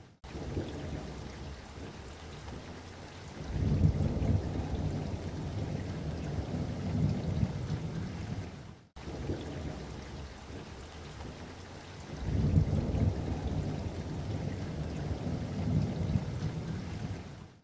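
Looped background soundtrack of low rumbling noise that swells and fades. The same stretch of about nine seconds plays twice, with a brief dropout where the loop restarts.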